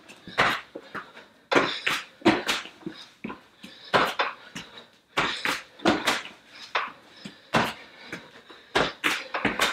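Burpees on a rubber gym mat: hands and feet slapping down and shoes landing from the jumps, one or two thuds a second at an uneven pace, with hard breathing between them.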